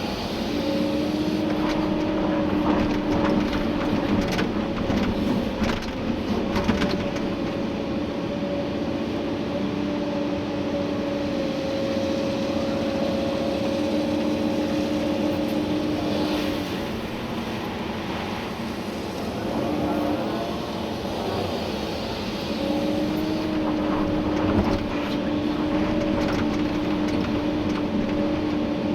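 Komatsu PC290-11 excavator working, heard from the cab: its diesel engine and hydraulics run under load with a steady whine. The whine eases off for a few seconds past the middle and then comes back, with a few knocks from the digging.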